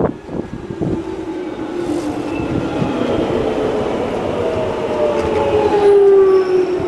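Alstom-built London Underground 1996 Stock train running into a platform and slowing. Its traction motors give several whining tones that slowly fall in pitch and grow louder, loudest near the end. A few knocks of wheels over rail joints come in the first second.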